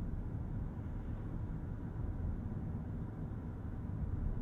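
Road and tyre noise inside the cabin of a 2022 Ford F-150 Lightning electric pickup driving at about 35 mph on a rough city road: a steady low rumble.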